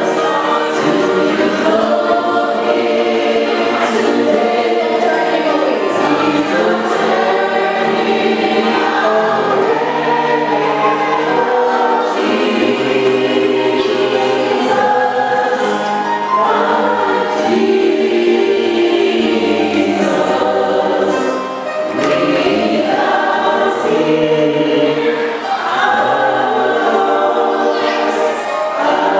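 A choir singing a gospel hymn, many voices together in harmony, with a couple of brief breaks between phrases late on.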